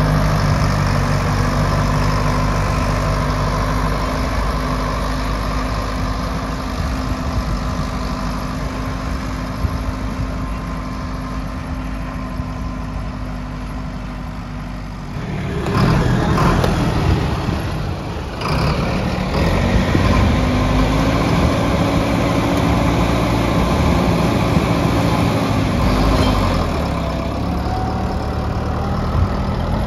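Sonalika Tiger 65 4x4 common-rail diesel tractor engine running steadily under load while pulling a tine cultivator through dry soil, its sound slowly fading as it moves off. About halfway through, the engine comes in suddenly much louder, closer and rougher.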